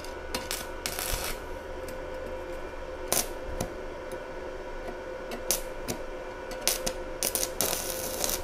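Stick-welding arc from a NANYA mini inverter welder with a 2.5 mm electrode being struck against thin-wall steel box section: scattered sharp crackles and pops as the rod touches and sparks, then a denser burst of arc crackling near the end.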